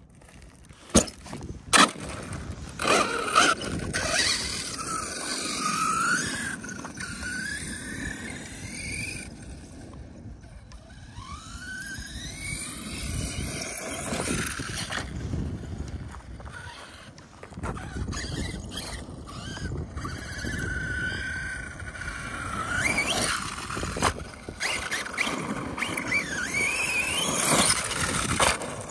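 Arrma Kraton 6S RC monster truck's brushless motor and drivetrain whining, rising and falling in pitch again and again as the throttle comes on and off, over the rushing noise of its tyres on loose dirt. Two sharp knocks about a second in.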